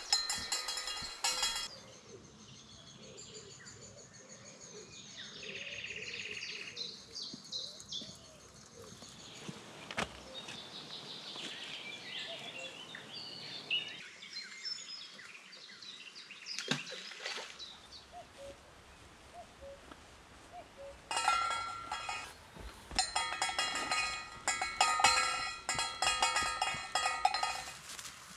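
Footsteps swishing through tall grass, with a rhythmic metallic jingle in step, at the start and again through the last several seconds. In the quieter middle stretch, wild birds sing.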